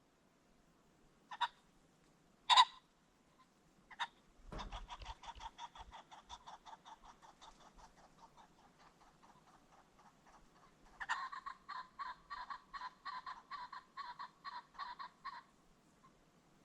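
Ring-necked pheasant calling: a few single clucks, then a long run of rapid clucks at about five a second that fades away, followed by a second, louder run that stops sharply near the end.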